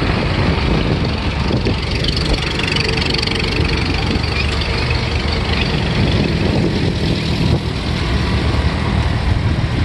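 Vintage farm tractor engine running steadily at low speed.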